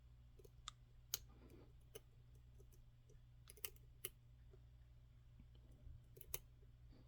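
Hook pick probing the pins of an EVVA ICS lock under tension: about half a dozen small, sharp metallic clicks at irregular intervals.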